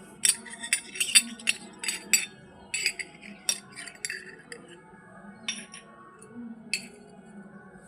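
Miniature toy kitchen pieces clinking and clicking together as they are handled, a quick run of light clinks and then a few scattered ones, over soft background music.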